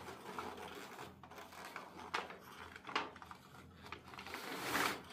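Aluminium foil crinkling and rustling under hands as a large roasted fish is handled on it, with a few sharp crackles and a longer, louder rustle near the end.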